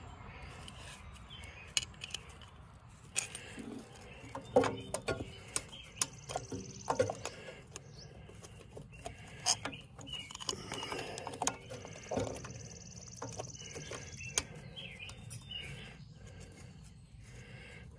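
Scattered light clicks and knocks of the valve tappet cover being fitted back onto a Wisconsin air-cooled engine, several in quick succession through the middle. Birds chirp in the background.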